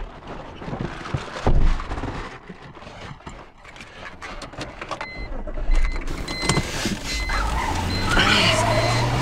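A BMW's door shuts with a thud about 1.5 s in, amid rustling and clicks from inside the car. From about 5 s a repeating electronic warning chime sounds, and the engine starts and runs.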